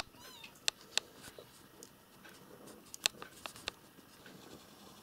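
A cat gives a short wavering mew right at the start, then come scattered sharp clicks and taps, the loudest about a second in and a cluster around three seconds in.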